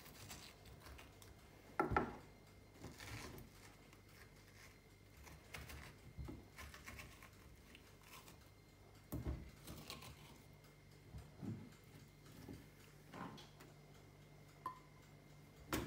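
A small spoon scraping out the flesh of round courgettes, with scattered soft knocks and clicks as the courgettes and spoon touch a plastic cutting board. The loudest knock comes about two seconds in.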